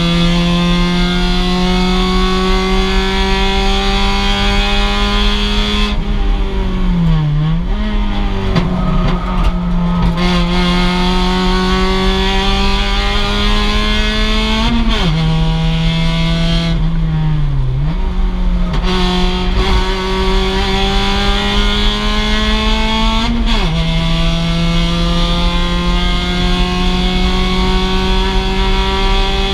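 Mazda MX-5's four-cylinder engine pulling hard through long stretches of rising revs. It drops in pitch with upshifts about halfway and near the end, and with two braking downshifts, about 7 and 17 seconds in, that carry quick throttle blips.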